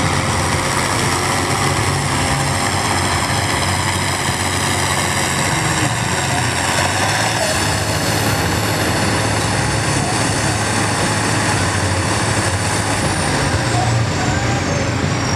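Farm tractor's diesel engine running hard under full load as it pulls a weight-transfer sled, a loud steady drone. A high whine falls in pitch near the end.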